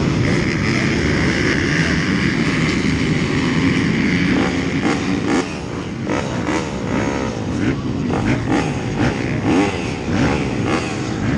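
A row of off-road dirt bikes started at a dead-engine race start, many engines running at once and revving up and down.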